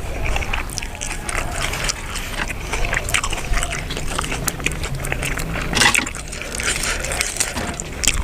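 Close-up chewing of buffalo-meat larb, a spicy minced-meat salad: a steady run of short wet clicks and crackles from the mouth. The chewing is loud, as the video's title describes it.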